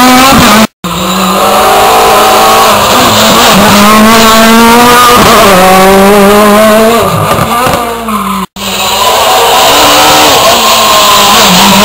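Rally cars' engines revving hard through a hairpin, the engine note rising and falling with gear changes and lifts off the throttle. The sound cuts out abruptly twice, for a split second each time, where passes by different cars are spliced together.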